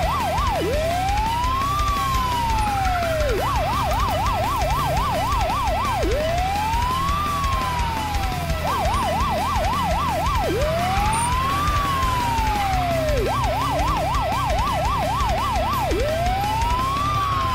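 Police car siren cycling between a fast warble, about four sweeps a second, and a single slow rise and fall, the pair repeating every four to five seconds.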